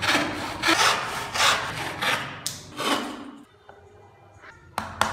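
Rasping strokes of wood being rubbed or worked back and forth by hand, about five strokes in the first three seconds at a steady pace, followed near the end by a few sharp wooden knocks.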